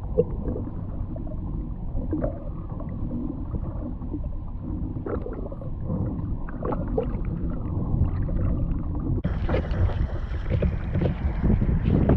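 Gusty wind buffeting the microphone with water splashing and sloshing on the water's surface. About nine seconds in the rush of wind and water grows louder and brighter.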